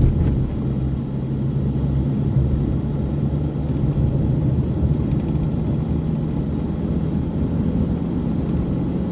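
Vehicle travelling at road speed: a steady low engine hum with road and wind noise.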